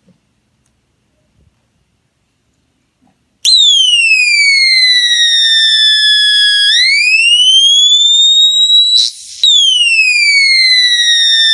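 Homemade electronic police siren circuit wailing through a small speaker: it comes on suddenly about three and a half seconds in, sweeping down, back up and down again. A brief crackle cuts in at the top of the second sweep.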